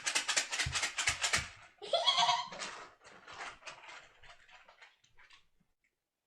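Children giggling in quick bursts, with a high squealing laugh about two seconds in, then trailing off.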